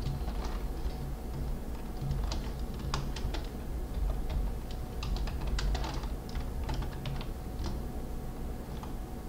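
Typing on a computer keyboard: irregular runs of key clicks, thickest in the middle of the stretch, over a steady low hum.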